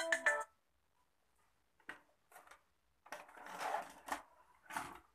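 A VHS cassette pushed into the front-loading slot of a Panasonic NV-SJ200 video cassette recorder: a couple of light plastic clicks, a second-long sliding scrape, then two sharp clunks as the loading mechanism takes the tape in.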